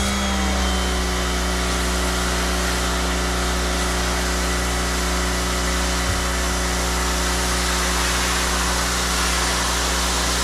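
Electric pressure washer running steadily, its motor and pump humming under the hiss of the water jet.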